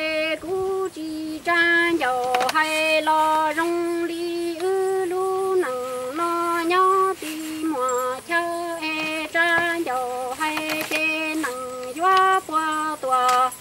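A woman singing kwv txhiaj, Hmong sung poetry, unaccompanied: a chain of long held notes on a few pitches, sliding down and back up between them, with short breaks between phrases.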